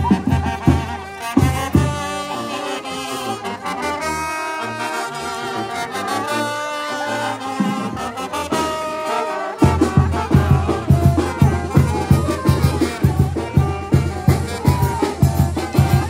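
Oaxacan village brass band (banda de viento) playing, with trumpets, trombones and saxophones. For several seconds the drums drop out and the horns play held notes on their own; then, a little under ten seconds in, the bass drum and percussion come back in with a steady beat.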